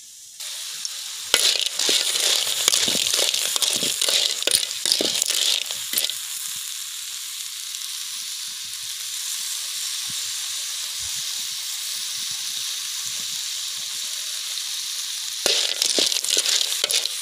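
River snails in their shells sizzling in a steel wok over a wood fire, with holy basil and chillies. For the first few seconds and again near the end, a metal spoon scrapes the pan and the shells clatter as they are stir-fried; in between there is a steady sizzle.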